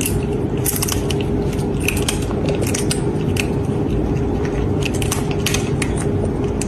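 Sunflower seeds being bitten open: irregular sharp cracks and crunches of the shells, over a steady hiss and faint hum.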